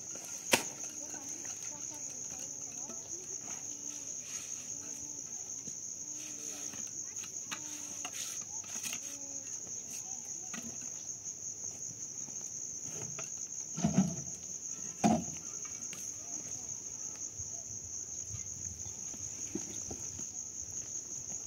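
Insects chirping steadily in a high, even, pulsing chorus. A sharp click sounds about half a second in, and two louder low thuds come about a second apart in the second half.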